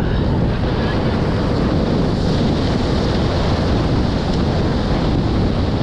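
Wind buffeting the microphone over breaking surf: a steady, loud rush with no letup.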